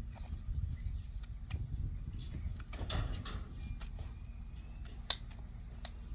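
Scattered light clicks and taps of small metal engine parts being handled, a piston pin and piston rings during an engine rebuild, over a low steady rumble. The sharpest click comes about five seconds in.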